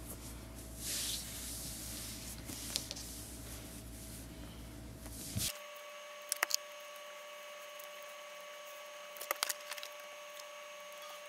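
Quiet handling of fleece fabric and a paper sewing pattern on a cutting mat, with short sharp clicks of small objects being set down: three quick ones about six seconds in and a few more about nine seconds in. A steady low hum in the first half cuts off about five seconds in, leaving quieter room tone with a faint steady whine.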